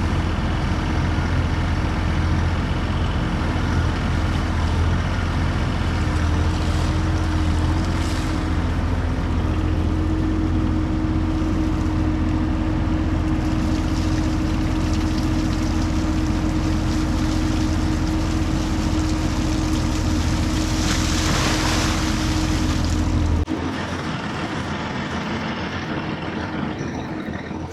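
Bobcat T66 track loader's diesel engine running steadily with a deep drone, with a short burst of hiss a little past twenty seconds. Near the end the deep engine drone drops away abruptly and the sound becomes quieter.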